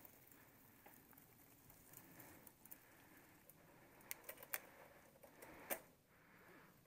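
Faint rolling noise of a mountain bike on a dirt trail, with a few sharp clicks and rattles from the bike over bumps between about four and six seconds in.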